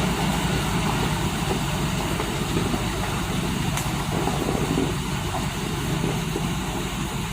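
Heavy diesel engines running steadily during the tow of a stuck truck, a low, even rumble with no revving.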